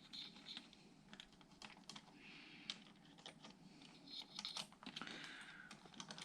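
Faint, irregular light clicks and soft rustling, from small hard parts being handled.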